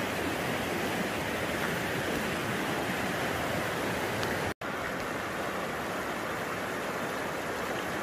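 Steady rush of a river running over stones, even and unbroken except for an instant's dropout just past halfway.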